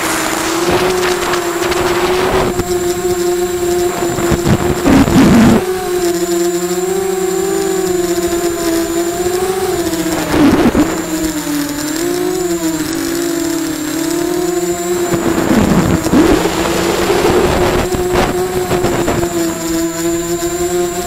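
QAV250 racing quadcopter's brushless motors and propellers whining, heard up close on the craft, the pitch wavering up and down with the throttle. Several times short rushes of wind and prop noise swell over the whine.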